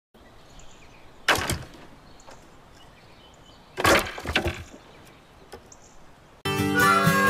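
Branches and pieces of firewood thrown onto a woodpile, landing with two loud wooden cracks about two and a half seconds apart, the second a short clatter of several strikes, over faint outdoor background. Acoustic guitar music starts near the end.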